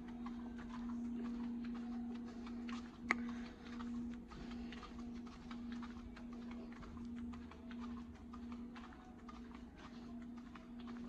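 Handling noise from a phone carried by someone walking: irregular small clicks and rustles, with one sharper click about three seconds in, over a steady low hum.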